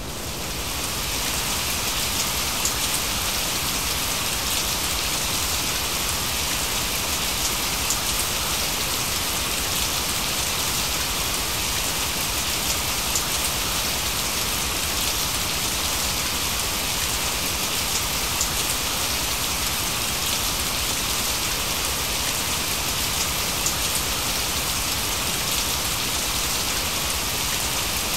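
Steady recorded rainfall: an even hiss of falling rain with faint scattered drop ticks, fading in over the first second. It serves as the masking track for a subliminal audio.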